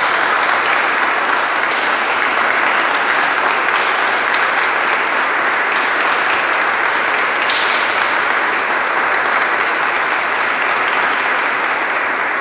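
Church congregation applauding: steady, dense clapping from many people.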